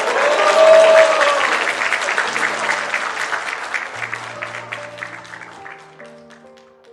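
Crowd of guests clapping, with a short cheer about a second in. The applause thins and fades away over the next few seconds, leaving soft background music.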